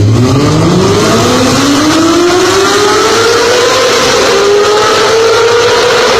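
Honda CBR250RR 250 cc inline-four motorcycle engine revving, its pitch climbing steadily for about four seconds toward its very high redline, then holding high.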